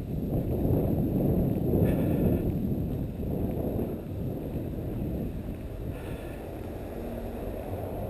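Wind buffeting the camera's microphone, a rough, uneven rumble that eases somewhat after the first few seconds.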